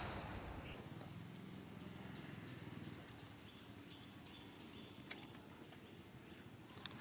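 Faint high-pitched insect chorus, its shrill note pulsing on and off a few times a second, with a couple of faint clicks about five seconds in.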